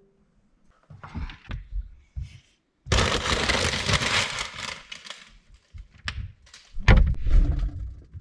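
Household handling noises: short rustles, then a loud rushing rustle lasting a couple of seconds. Sharp clicks follow, then a heavy thump near the end.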